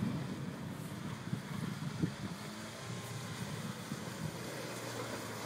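Mitsubishi Shogun Pinin's engine running as the small 4x4 drives across a grass field: a faint, steady engine hum.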